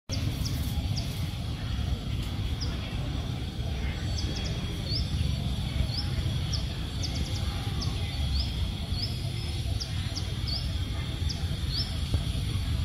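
Outdoor ambience: a steady low rumble with short, high bird chirps repeating irregularly, about one or two a second.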